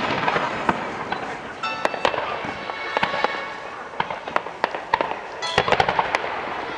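Aerial fireworks bursting: a run of sharp bangs and crackles every half second or so, thickening into a dense cluster about five and a half seconds in, with music playing underneath.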